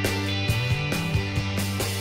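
Background music with a steady beat, about two beats a second, over sustained pitched notes.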